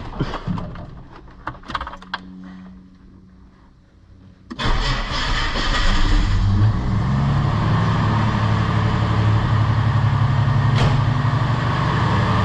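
Ford XF Fairmont's straight-six engine: a few clicks and knocks, then the engine starts about four and a half seconds in and settles into a steady idle. This is the first start after the alternator was replaced.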